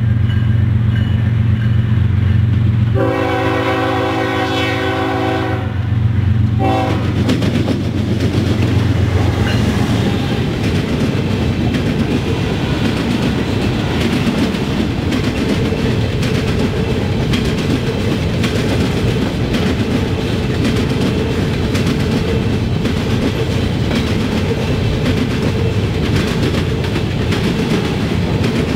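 A GE ES44DC diesel locomotive approaches with a steady low engine hum and sounds one long horn blast about three seconds in. After the horn the rest is a loaded freight train of covered hopper cars rolling past close by: a dense rumble with repeated clacking of steel wheels over the track.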